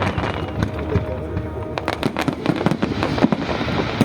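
Fireworks display: a rapid, irregular run of bangs and crackling pops from aerial shells.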